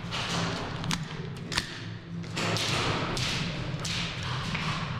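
Footsteps and gear movement on a hard floor, with two sharp cracks about a second in, roughly half a second apart.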